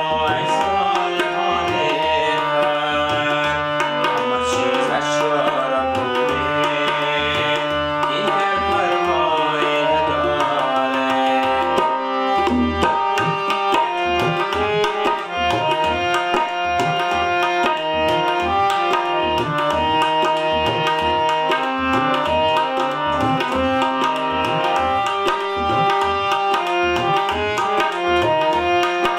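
Hand-pumped harmonium playing a melody over held chords, with a pair of tabla drums keeping a steady rhythm of low bass-drum strokes and sharper treble strokes.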